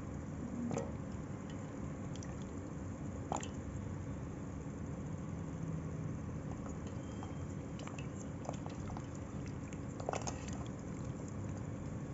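Soaked lumps of multani mitti (Fuller's earth clay) being squeezed and handled in water: soft wet squishing and dripping, with a few short clicks and splats, the sharpest about three seconds in and about ten seconds in, over a steady low background hum.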